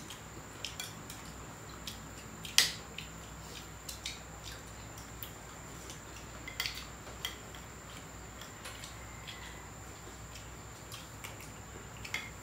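Eating sounds: scattered light clicks and clinks of a plate and utensils at a meal, the loudest about two and a half seconds in.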